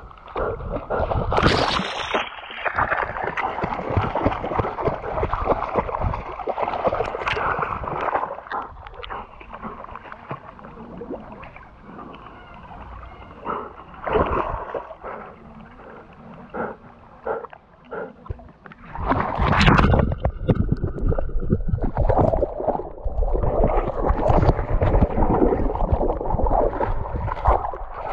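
River water sloshing and splashing, with a gurgling flow. It is louder for the first several seconds, quieter in the middle, and picks up again about two-thirds of the way through.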